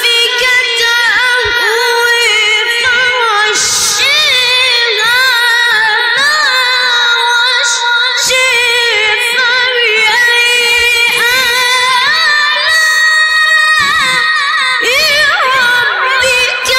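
A single voice chanting in a very high register, drawing out long ornamented melismatic phrases in the maqam style of tajwid Quran recitation.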